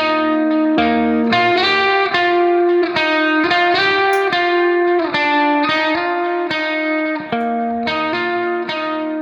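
Background music: a melody on plucked guitar, notes changing about twice a second.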